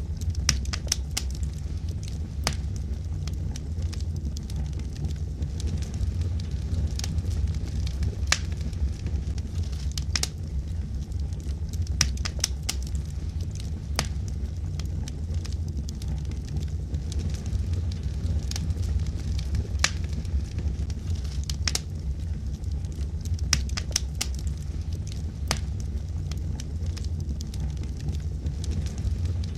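Wood fire in a fireplace: burning logs crackling and popping at irregular intervals over a steady low rumble of the flames.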